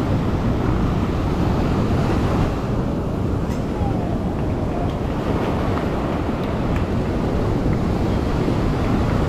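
Ocean surf breaking and washing up the shore, a steady rushing noise, with wind buffeting the microphone.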